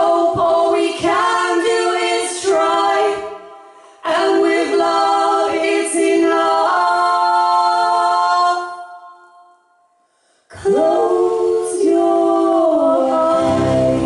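Two women's voices singing in close harmony, mostly unaccompanied, in long held phrases with short pauses between them and an almost silent break about nine seconds in. Low instrument notes come in near the end.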